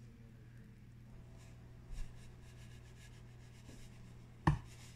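Quiet room tone with a steady low hum, a faint click about two seconds in, and one sharp knock near the end.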